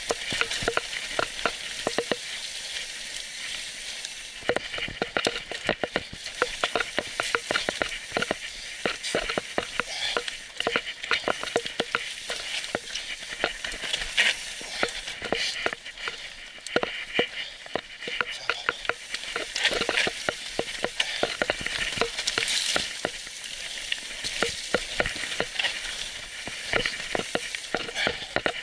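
Electric mountain bike clattering over a rough, stony trail at speed: a dense, irregular run of knocks and rattles from tyres, chain and frame over a steady hiss.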